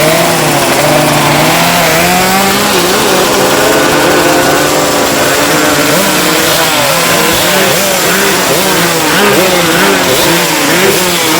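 A 135cc novice-class racing motorcycle engine revving while standing. For about six seconds the revs are held and waver slowly. After that the throttle is blipped repeatedly, so the revs rise and fall quickly again and again.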